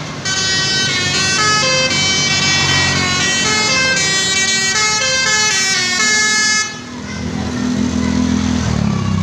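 Multi-tone musical vehicle horn, the Indonesian telolet/basuri kind, playing a melody of stepped notes for about six and a half seconds, then cutting off. A vehicle engine's low drone follows.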